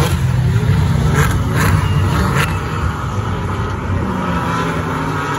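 A pack of Porsche Cayman race cars with naturally aspirated 3.8-litre flat-six engines passes at racing speed, then eases off somewhat as the cars pull away toward the next corner. A few short sharp cracks come between about one and two and a half seconds in, and engine notes rise near the end as the cars accelerate.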